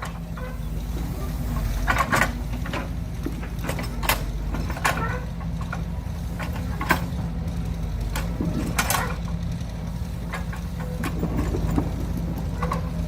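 Excavator engine running steadily with a low hum, with scattered sharp clanks and knocks through it.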